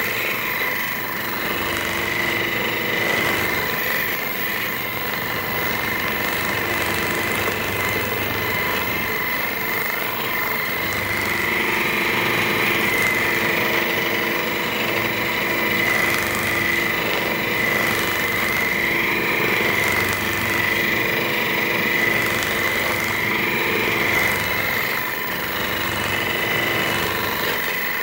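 Percussive massage gun running steadily: a motor whine over rapid hammering, its pitch wavering slightly as it works into the muscles.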